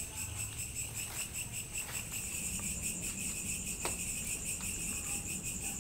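Crickets chirping in a steady, high-pitched chorus, with a faint click about four seconds in.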